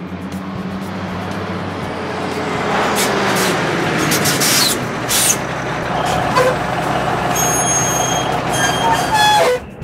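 Sound effect of a large tanker truck's engine running, with short sharp air-brake hisses around the middle as the truck pulls up. A steady tone joins in for the last few seconds, and the sound cuts off abruptly just before the end.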